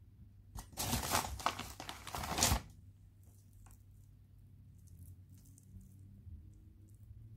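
Paper crinkling and tearing in a burst of about two seconds, then faint rustles and small clicks as fingers press papier-mâché pulp onto the form.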